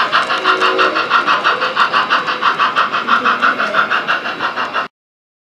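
On30 model train running on its track, with a rapid, even beat of about seven pulses a second that stops abruptly near the end.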